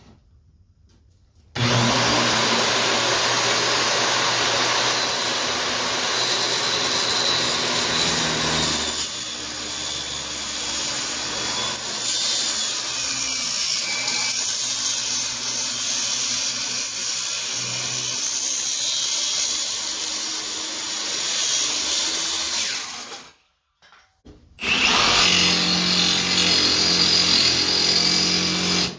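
Circular saw cutting steel under load in a long cut, then a short break and a second shorter cut near the end.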